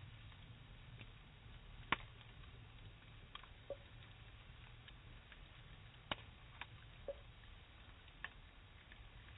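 Faint, sharp clicks at irregular intervals, about one a second, over a low steady hum. The loudest click comes about two seconds in.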